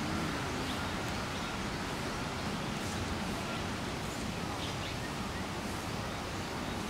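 Steady outdoor background noise with a few faint, short bird chirps now and then.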